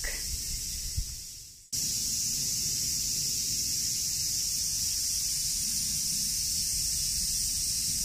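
A chorus of cicadas calling as one steady, high-pitched shrill drone. It fades away about a second and a half in, then comes back abruptly and holds steady.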